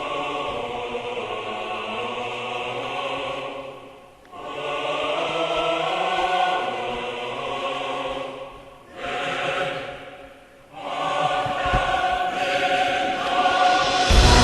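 Choral music: a choir singing long held chords, breaking off briefly about four, nine and ten and a half seconds in. Right at the end a louder, deeper music passage comes in.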